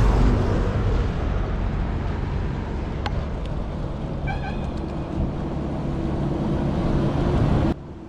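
Steady rumbling outdoor background noise with a hiss, cutting off suddenly near the end; a single click about three seconds in and a faint, short pitched call about halfway through.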